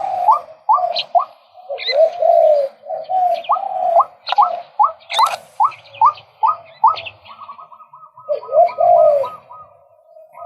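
Male white-breasted waterhen calling loudly: a string of short rising notes, about three a second, mixed with a few longer swooping calls, breaking into a faster run of quick notes near the end.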